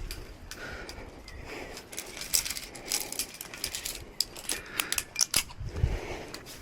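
Metal climbing gear, carabiners and quickdraws, clinking and jangling in a series of sharp clicks, busiest from about two seconds in until near the end.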